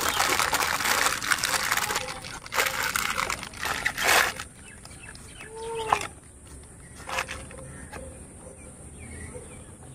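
Thin plastic bag crinkling and rustling as a toy tractor is pulled out of it, for about the first four seconds. Later a bird calls briefly.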